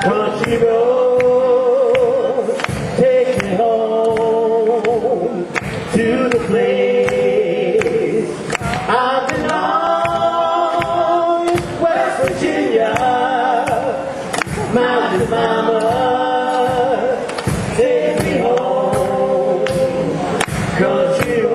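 Live rock band playing a song: sung vocals over a steady drumbeat, with keyboards and guitars.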